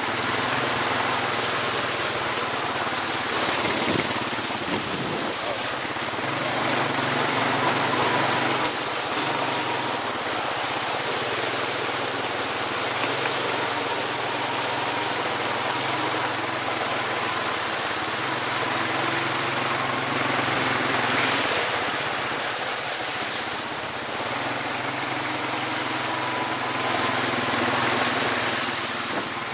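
ATV engine running during a ride, mostly buried under steady rushing wind noise on the microphone, with a faint engine whine holding through.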